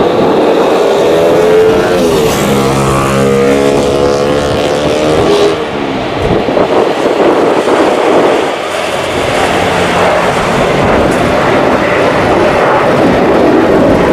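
Boeing 737-900ER's twin CFM56-7B turbofan engines at take-off thrust during the take-off roll and lift-off: loud, steady jet noise, with a droning tone that bends in pitch a few seconds in.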